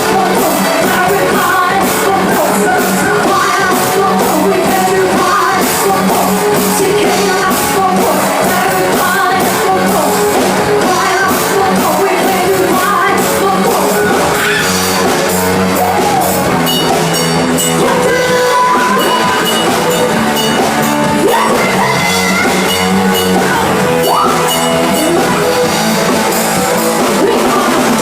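Loud rock music with singing over electric guitar and a drum kit, at an even level throughout.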